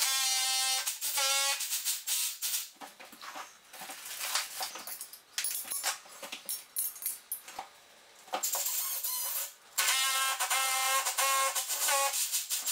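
Cordless Milwaukee drill boring a masonry bit into a brick wall, played back four times fast so its whine sounds high and wavering; the drilling runs at the start and again from about ten seconds in. In between come quick clicks and clatter as the bracket is worked with a spanner.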